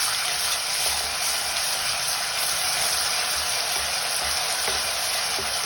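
Ginger and garlic paste frying in hot oil in a kadhai: a steady sizzle.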